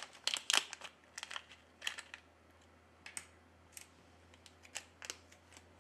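Crinkling of a silvery anti-static bag as the replacement dual rear camera module is unwrapped: a dense run of crackles for about two seconds, then a few scattered light clicks and taps.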